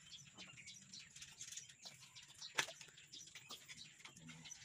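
Faint, scattered metallic clicks and scrapes of a screwdriver working inside a transmission shift cover, with one sharper click about two and a half seconds in.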